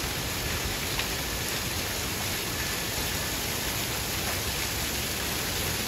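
Steady rush of water falling from a small artificial rock waterfall.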